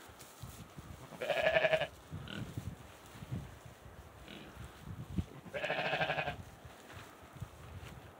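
Sheep bleating twice, about four seconds apart, each a short wavering call.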